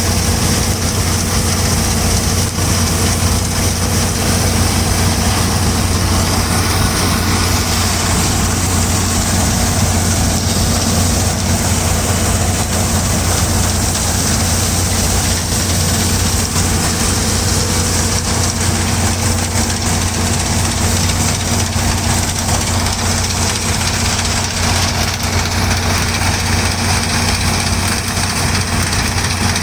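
New Holland TC5.30 combine harvester running at a steady engine speed: a loud, even engine and machinery drone with a low hum.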